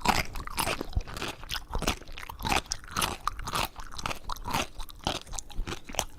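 Potato chips being crunched and chewed in a fast, irregular run of crisp crackles.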